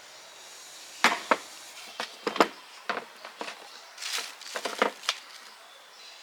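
An irregular run of sharp knocks and clicks, about a dozen over some four seconds, the loudest about a second in and again near the middle, typical of hard parts or tools being handled and set down on a workbench.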